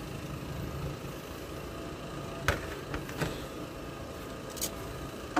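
Steady low engine rumble from nearby work machinery. A few sharp clicks and knocks come through it about halfway through and once more near the end.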